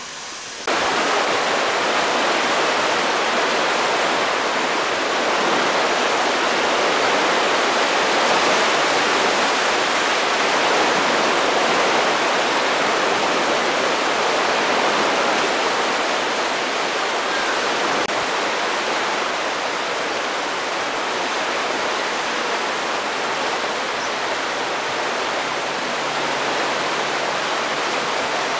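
Water churning and rushing into a river lock chamber as the lock fills: a loud, steady rush that begins suddenly about a second in.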